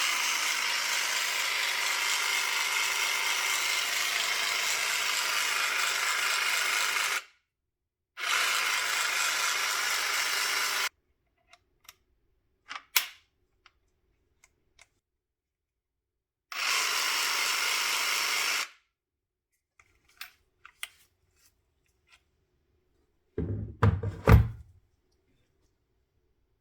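Repaired Makita 18V cordless jigsaw running without load, switched on and off three times: a long run, then two shorter ones. Small clicks come between the runs, and a few knocks near the end.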